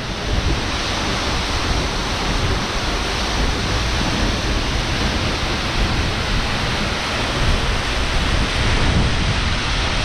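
Seljalandsfoss, a waterfall of about 60 m, pouring into its plunge pool, heard from close behind the falling water as a loud, steady rush with a deep rumble underneath.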